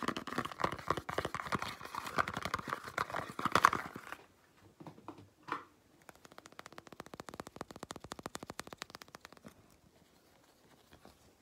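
Fingers handling a cardboard soap box close to the microphone, with crinkling and crackling of the paper. It is loud for about the first four seconds, then drops to fainter crackling and light ticking.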